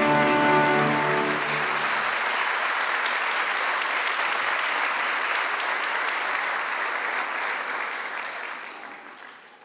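Audience applauding as the last notes of the dance music die away about two seconds in; the applause then fades out near the end.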